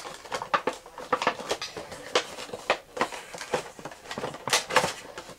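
Cardboard Funko Pop box being handled and opened, its flaps tugged: a run of irregular sharp clicks and scrapes, loudest near the end.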